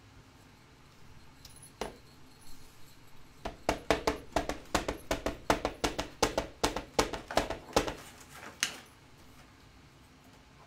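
Ink pad dabbed again and again onto a clear stamp to ink it, at about four quick taps a second for some four seconds. A single knock comes about two seconds in.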